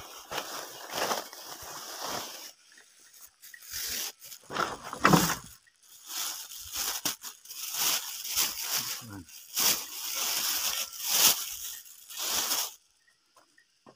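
Rustling and crinkling of a cloth bag being opened and a plastic bag being pulled out and handled, in irregular bursts that stop near the end.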